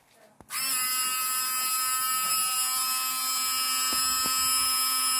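A 12-volt car windscreen washer pump motor switches on suddenly about half a second in and runs with a steady high whine, spraying water. The pump has been switched on through a relay by the deterrent's PIR motion sensor.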